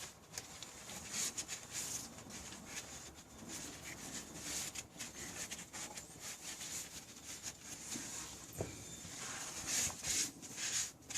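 Faint, irregular rubbing and scuffing strokes with a few soft knocks.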